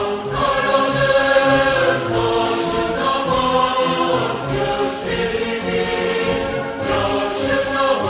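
Closing theme music: choral voices singing long held notes that change pitch every second or two, with a hissing swell about every two and a half seconds.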